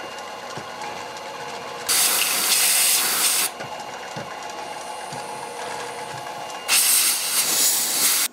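Drill press running with a steady hum while a countersink chamfers the tapped scope-base screw holes in a steel rifle receiver. Compressed air hisses loudly twice, about two seconds in and again near the end, blowing chips out of the holes.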